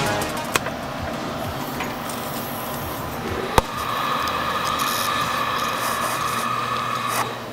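A powered 3.5-inch hard disk drive handled in the hand: rubbing and scraping, a sharp click about half a second in and another about three and a half seconds in, then a steady whine with a low hum from about four seconds in that cuts off shortly before the end.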